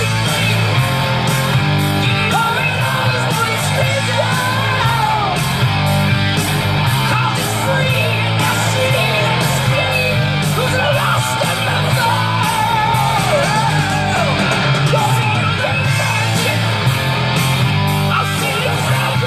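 Heavy metal song: a strong, belting male vocal over electric guitars, bass and drums.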